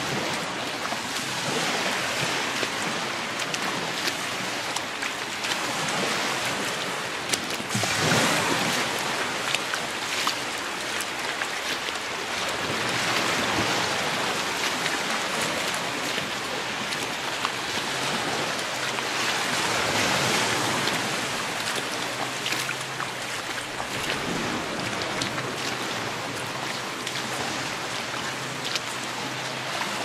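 Gulf of Mexico surf washing onto the beach, a steady wash that swells louder every several seconds as waves break and run up the sand.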